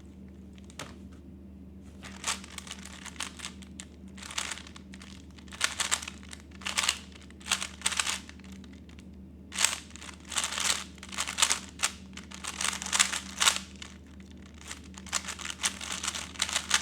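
A 3x3 Rubik's cube being turned fast in a speedsolve: quick runs of plastic clicking and rasping as the layers snap round, starting about two seconds in, with short pauses between runs of turns.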